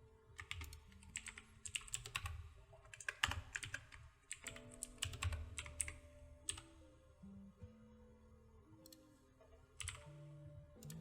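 Computer keyboard keystrokes and clicks in irregular clusters, over faint background music with steady low notes.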